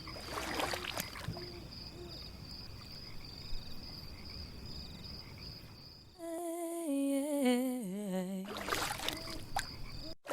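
A woman's voice hums a slow melody that steps downward, starting about six seconds in. Before it there is a steady outdoor hiss with a thin high tone, with brief swells of noise about half a second in and again near the end.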